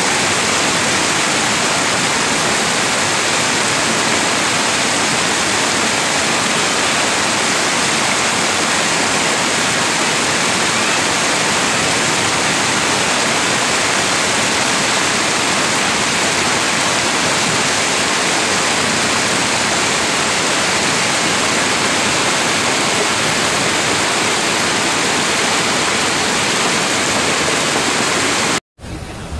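Floodwater rushing down a street in a fast, churning torrent: a loud, steady rushing noise that cuts off suddenly near the end.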